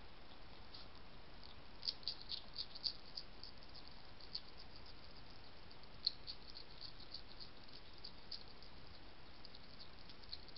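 European hedgehog chewing food, a run of crisp, irregular crunching clicks that come in bunches about two seconds in and again about six seconds in, over a steady faint hiss.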